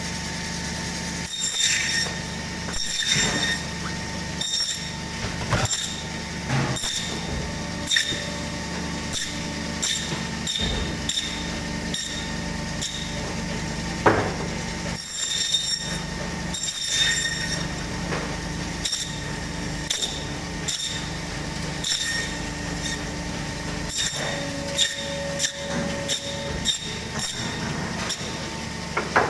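Butcher's meat bandsaw running with a steady hum, with frequent short sharp cracks and clicks, about one every second or so, as goat is cut through the bone into small pieces.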